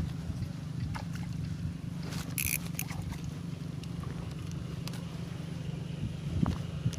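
Steady low motor drone, with scattered faint clicks and a short hiss about two and a half seconds in.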